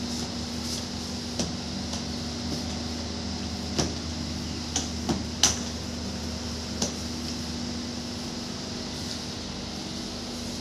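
A flat dry mop pushed across ceramic floor tiles around furniture legs, giving about six sharp clacks in the first seven seconds over a steady background hum.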